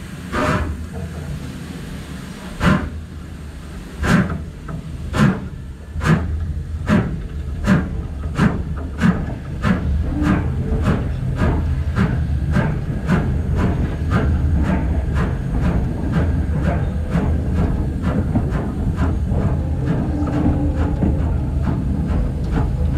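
BR Standard Class 5 two-cylinder steam locomotive 73156 pulling away from a stand: its exhaust beats start about two seconds apart and quicken steadily as it gathers speed, running at two or three a second near the end over a growing rumble of the moving train.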